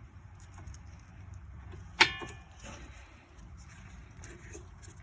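Brake caliper work on a car's front wheel: a single sharp metal clank with a brief ring about two seconds in, as the caliper is being closed over the new brake pads, amid small clicks and handling noises.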